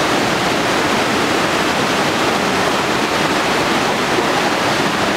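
Steady rushing of a river running over rocks.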